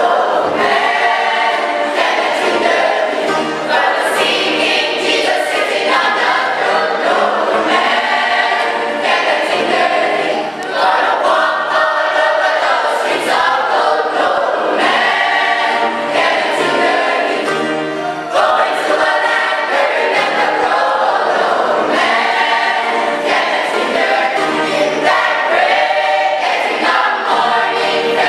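Choir singing gospel music, loud and steady throughout.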